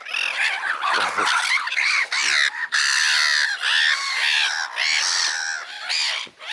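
A flock of birds calling over one another, many calls overlapping without a break, with a brief lull near the end.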